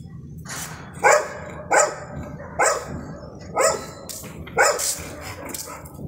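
Golden retriever barking: five loud barks, about one a second.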